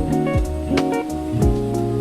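Background music: a guitar tune over a steady drum beat with deep kick drums.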